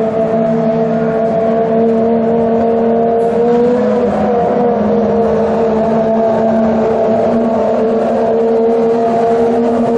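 Ferrari 599XX Evo and FXX race cars' V12 engines running at low, steady revs as they roll slowly in a line, the pitch lifting slightly about four seconds in.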